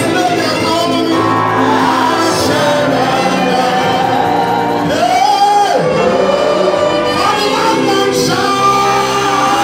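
Gospel praise music with a group of voices singing together, loud and steady in a large hall. About five seconds in, one voice rises into a held high note and falls away.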